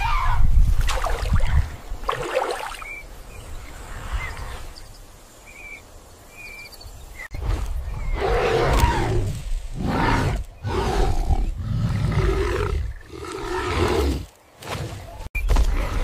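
Wild animal roars and growls in rough bursts of a second or two, with a quieter stretch in the middle where a few short high chirps sound.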